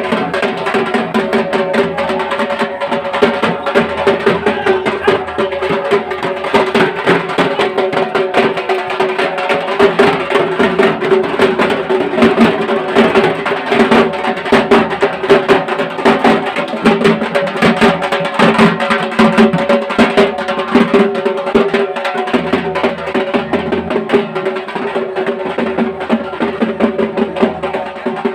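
Loud, fast, dense drumming over a steady held tone: percussion-led festival music.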